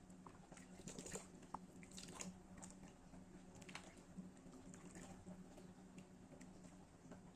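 Faint wet squelching and soft clicks of a spatula stirring thick dal in a nonstick pan.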